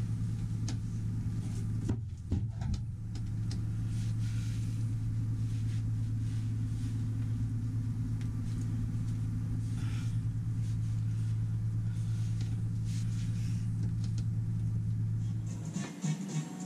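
Steady low machinery hum with scattered knocks and clatter of handling, a cluster of them about two seconds in; the hum cuts off suddenly near the end, where music begins.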